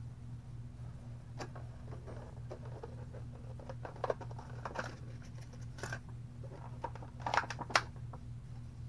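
Toy packaging being handled by hand as an action figure is taken out of its box: scattered rustles and clicks, busiest and loudest near the end, over a steady low hum.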